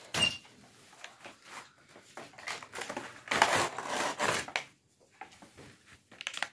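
Cardboard box and white plastic packaging tray of a toy train set being opened and handled, rustling and scraping. There is a sharp scrape at the start and a longer stretch of louder rustling around the middle.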